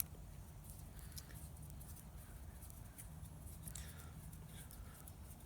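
Faint small clicks and light scrapes of a small screwdriver turning the bezel screws of a plastic G-Shock watch, over a low steady hum.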